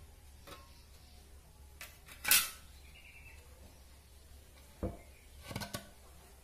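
A steel handsaw set down with a sharp clatter on a concrete floor about two seconds in, then a few light knocks as the freshly cut bamboo pieces are handled against a brick and the floor.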